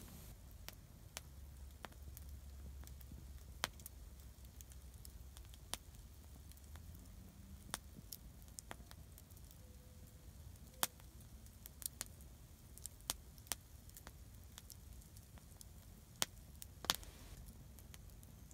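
Log campfire crackling, with sharp, irregular pops and snaps of burning wood, about fifteen of them.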